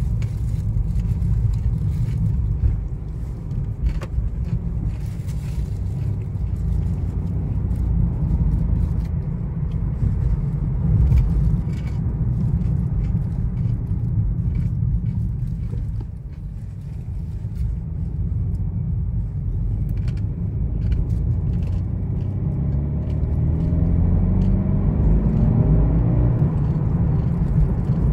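Inside the cabin of a BMW 330i with its 2.0-litre turbocharged four-cylinder, driving on a street: a steady low rumble of engine and road. The level dips briefly past halfway, then the engine note climbs over the last several seconds as the car accelerates.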